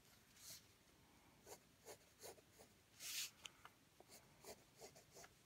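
Wooden graphite pencil scratching on paper in a string of short, faint strokes, the longest and loudest about three seconds in.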